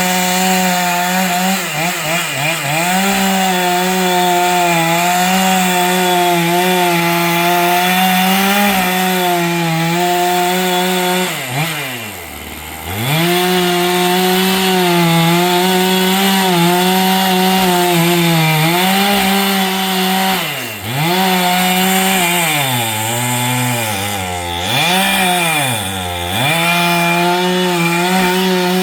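Chainsaw running at high revs. It drops toward idle several times, most deeply about twelve seconds in, and revs back up each time.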